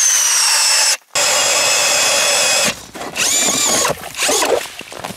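Cordless drill spinning an ice auger, boring a hole through lake ice: a loud, steady, high motor whine. It cuts off sharply about a second in, runs again until near three seconds, then comes back briefly, rising and then falling in pitch.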